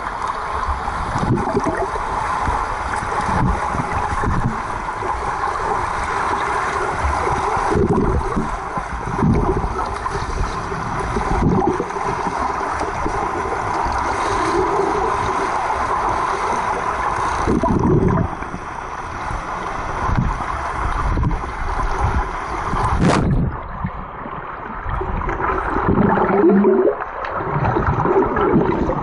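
Pool water heard through a waterproof camera held underwater: a continuous muffled rush and gurgle of moving water, with a few dull thumps from swimmers moving nearby. It turns duller for the last few seconds.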